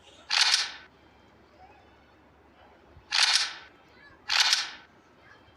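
Toy pistol firing three short hissing bursts, about half a second each: one right at the start, then two close together about three and four seconds in.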